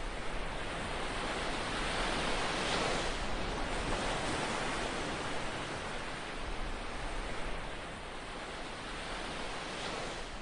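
Ocean surf breaking on a sandy beach: a steady rush of waves that swells about two to five seconds in, with a smaller swell near the end.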